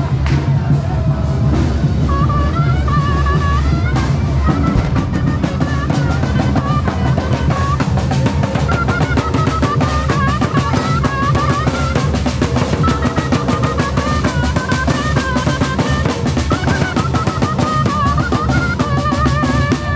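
Traditional fife-and-drum music: several large wooden drums and a snare drum beat a dense, steady march rhythm, and from about two seconds in a flute plays a fast, wavering high melody over them.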